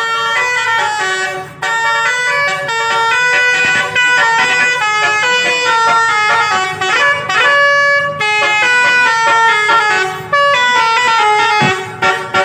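Basuri multi-tone 'telolet' bus horn playing a quick, loud tune, its notes stepping from pitch to pitch several times a second with a few brief pauses.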